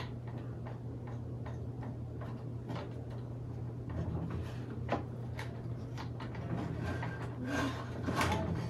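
Scattered light ticks and clicks from handling a wooden beehive frame and tightening its steel wire, a few more close together near the end, over a steady low hum.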